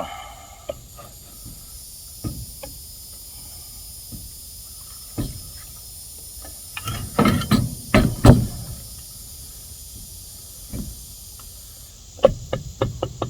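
Hand tools and metal parts knocking and scraping as a stuck cover is worked loose on a Coleman CC100X mini bike's 79cc single-cylinder engine: scattered knocks, a cluster of louder knocks about halfway through, and a quick run of clicks near the end.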